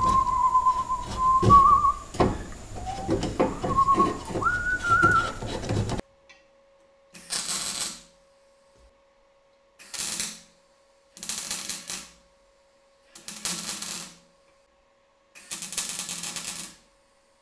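A man whistling a wavering tune over knocks and scraping from hand-tool work on a steel bar. Then five short bursts of electric arc welding, each about a second long, tacking holes in the steel tow pole closed, with a faint steady hum between the bursts.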